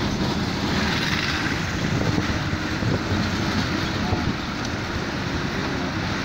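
Bus engine running and rumbling road noise while driving along, heard from inside the bus through an open window.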